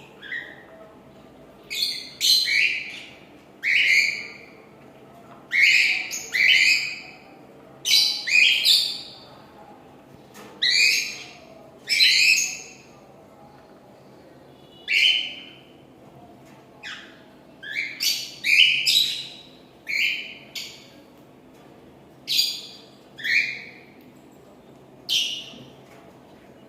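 Cockatiel singing: a long run of short, shrill calls, each dropping in pitch, coming every second or two.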